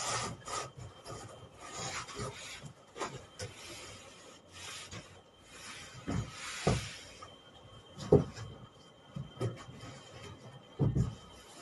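Large cardboard shipping box being handled and shifted about: irregular scraping and rubbing of cardboard, with a few dull thumps as it is set down or knocked, the loudest about eight seconds in.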